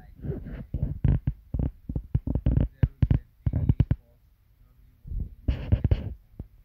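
A person talking close to the microphone in short, choppy bursts with a heavy low end, pausing for about a second a little past the middle.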